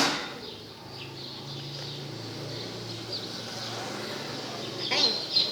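Birds chirping in the background, with a sharp click at the start and a few louder chirps near the end.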